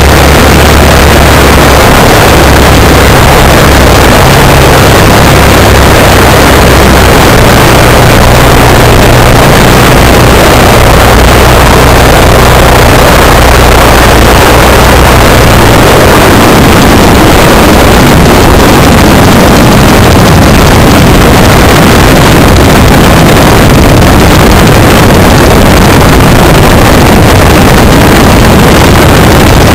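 Legal Eagle ultralight's engine running at low throttle with its propeller turning close to the microphone, mixed with wind noise. Very loud, overloading the recording. The low engine drone shifts about halfway through.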